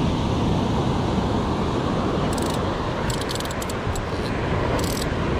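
Steady rush of shore surf and wind with a low rumble on the microphone. Brief clusters of light clicking come about two seconds in, again a second later, and near the end as the spinning reel is handled.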